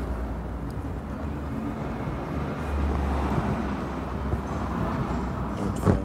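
Low, steady rumble of background noise, swelling about three seconds in, with a single sharp click near the end.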